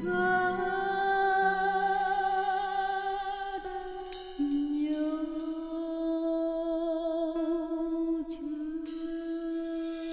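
Woman singing long held notes with vibrato into a microphone over a karaoke backing track, near the end of a Vietnamese ballad: one note held for about three seconds, then a lower note held to the end.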